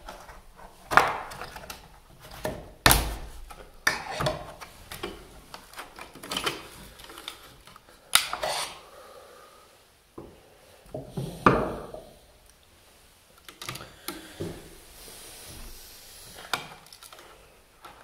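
Hand tools and a GFCI outlet with its wires being handled at a plastic electrical box on a wooden wall: irregular clicks, taps and rubbing, with a few sharp knocks, the loudest about a second in, near three seconds and past eleven seconds.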